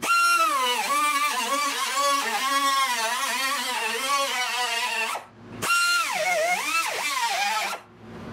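Pneumatic cut-off tool with a small abrasive disc cutting through 18-gauge sheet steel: a high whine whose pitch dips and wavers as the wheel bites into the metal. It stops about five seconds in, starts again a moment later and cuts off near the end.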